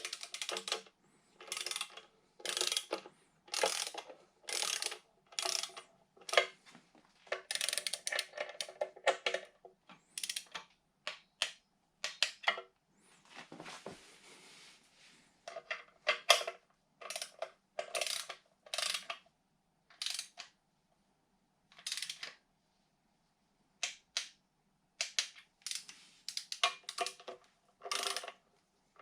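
A ratcheting torque wrench clicking in short, repeated runs as small timing-cover bolts on an RB20DET engine are done up to torque.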